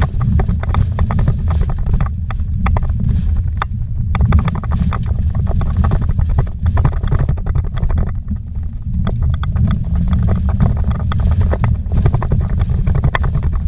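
A vehicle driving fast over a rough, rocky dirt road, heard from inside the cabin. A steady low rumble runs under constant rattles and knocks as it jolts over the bumps.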